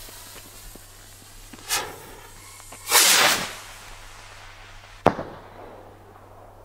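Small consumer firework rocket (Vulcan Rockets 'White Glittering') launched from a rack: a brief rush, then a louder rushing whoosh about three seconds in, and a single sharp crack about two seconds later as it bursts into glittering white stars.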